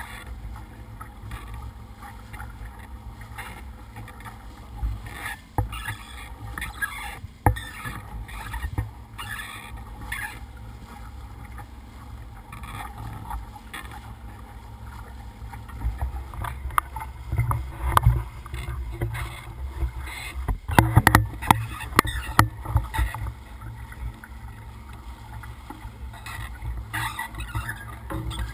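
Bow wave of a small boat under motor rushing and splashing against the hull, over a steady low rumble. Scattered knocks and splashes break through, thickest in the second half.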